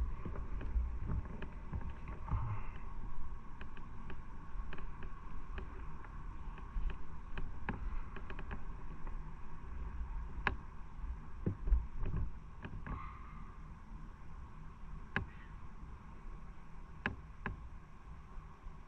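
Motorcycle running, a steady low rumble with a constant whine and scattered sharp clicks and ticks.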